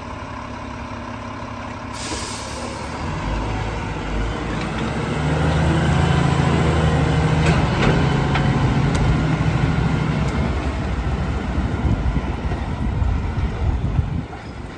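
Rear-loader garbage truck running its packer cycle. About two seconds in there is a sharp hiss of air, then the diesel engine revs up and holds high to drive the hydraulics while the blade sweeps and compacts the bags. Near the end the truck pulls away.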